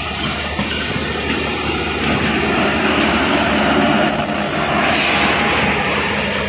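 Pakistan Railways express passenger coaches rolling past close by, their wheels rumbling and rattling on the rails over a steady low drone, with a brief high hiss about five seconds in.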